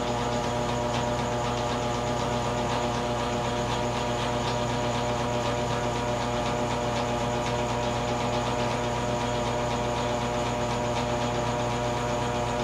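A steady machine-like hum at one unchanging pitch, with no rise or fall.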